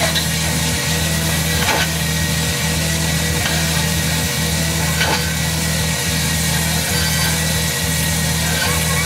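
Amplified low drone from an improvised experimental performance, pulsing a little faster than once a second, with scattered small clicks and knocks over it.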